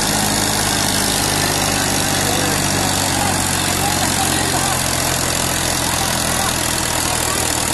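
Sonalika 60 RX three-cylinder diesel tractor engine working hard at a steady speed, pulling a fully loaded soil trolley through soft, sandy ground. The engine note holds even, without bogging down under the load.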